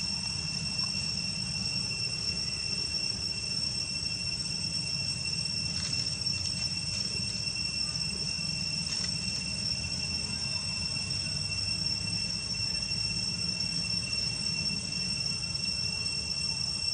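Steady high-pitched insect chorus, an unbroken drone, over a low steady rumble, with a couple of faint clicks partway through.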